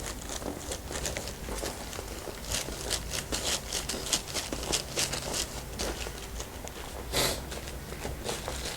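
Irregular rustling and crinkling from hands rubbing and kneading over skin, hair and fabric during a massage, with one louder rustle about seven seconds in.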